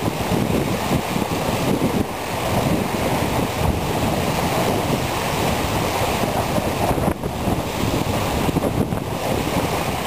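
Strong wind buffeting the microphone in gusts, a heavy low rumble, with river waves lapping and breaking at the shore.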